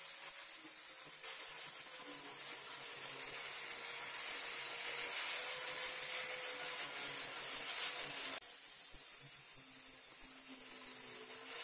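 Angle grinder with a purple abrasive disc running against bare metal bicycle suspension fork lowers: a steady scouring hiss over a constant motor whine. The level drops slightly and abruptly about eight seconds in.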